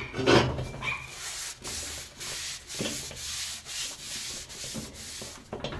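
Paper towel rubbing oil around the inside of a new cast-iron kazan, wiping off the excess oil while seasoning the pot. It goes as a hiss in repeated wiping strokes, about two a second.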